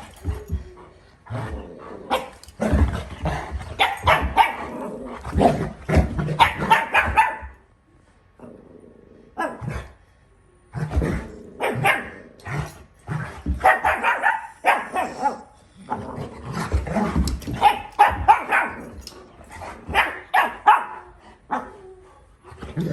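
Dog barking and growling in rough play with a person, in two long runs of quick barks with a lull about eight seconds in.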